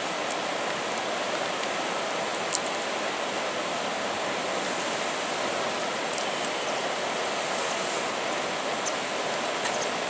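Steady, even hiss of outdoor ambience beside open harbour water in heavy snowfall, with a few faint, short, high ticks.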